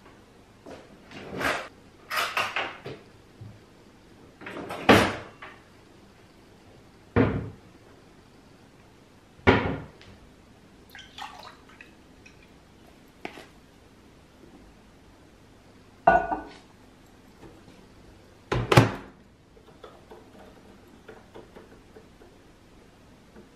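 Kitchen handling sounds: a string of separate knocks and clatters of dishes and cupboard doors, about eight in all, spaced a few seconds apart.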